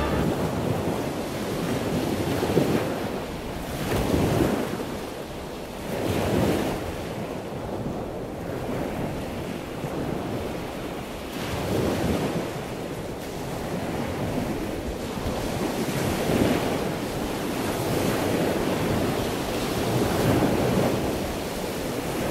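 Ocean surf and wind: waves washing in, the sound swelling and fading every few seconds.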